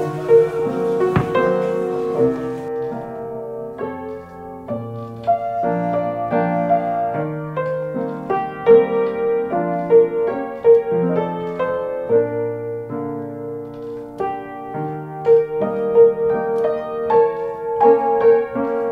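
Background piano music: a gentle melody with a repeated middle note over slowly changing bass notes.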